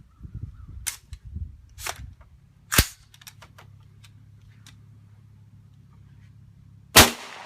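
Suppressed 300 Blackout short-barreled rifle fired twice, about four seconds apart; the second shot is the louder and rings on after it. A few lighter clicks come before the first shot.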